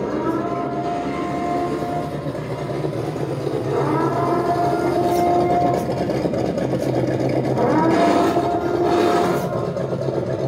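An RC monster truck's ESS sound unit plays a new multi-tone horn, like a train horn, through the truck's speaker: three long steady blasts, one at the start, one about four seconds in and one about eight seconds in. A simulated engine hum runs underneath.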